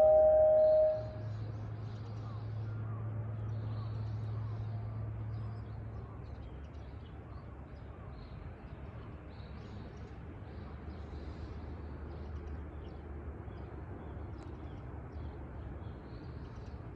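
The last note of an outdoor public-address chime dies away about a second in. It leaves faint outdoor ambience: scattered small-bird chirps over a low hum that is stronger for the first six seconds.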